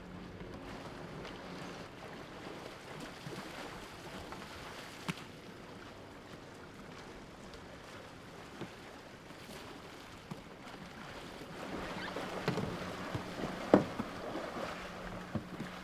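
Canoe polo kayaks and paddles moving and splashing through water, with scattered knocks. The splashing grows busier about three-quarters of the way through, with one sharp knock near the end.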